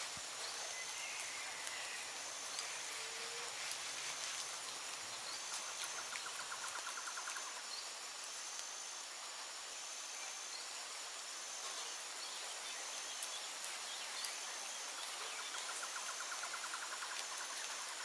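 Tropical forest ambience of steady rain with occasional louder drops. An insect repeats a short high chirp about once a second, and a rapid trill comes in briefly a few times, with a few faint bird calls.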